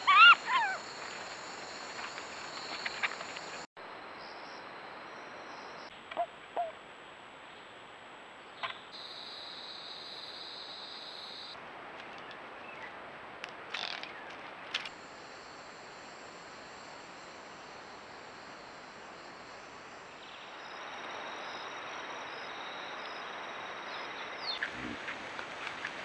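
Steady hiss of trail-camera audio with faint forest ambience, changing character at each cut between clips, with a few faint short calls, clicks and low thumps. It opens on the last of a string of loud rising-and-falling calls.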